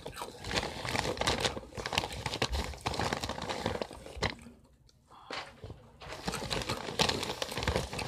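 Plastic Takis chip bag crinkling as it is handled close to the microphone, with a brief pause a little past halfway.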